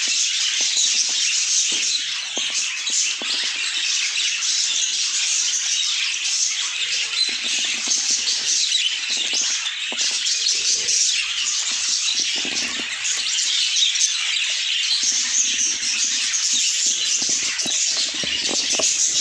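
A flock of budgerigars chirping and chattering together, a dense, continuous twittering with no pauses.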